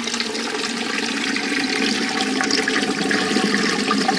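Toilet cistern refilling after a flush, water rushing in steadily.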